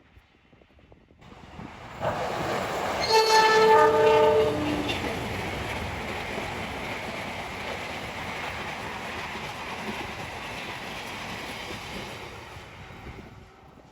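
Diesel-electric multiple unit (KRDE) train approaching and sounding its multi-tone horn for about a second and a half, about three seconds in, with the chord shifting as it ends. It then keeps running past with a steady rumble and clatter of wheels on rails that fades near the end.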